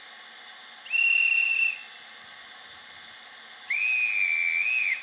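Digital sound decoder in an H0 model steam locomotive playing its conductor's-whistle sample through the model's small speaker: a short whistle blast about a second in, then a longer one near the end whose pitch rises and falls slightly.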